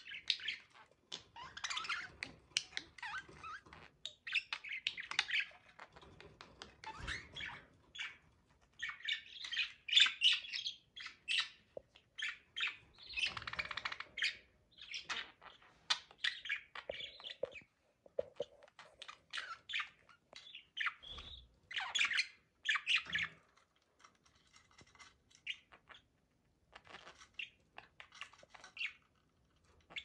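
Budgerigars chirping and chattering: many short, high calls in quick runs, with a short lull about two-thirds of the way through.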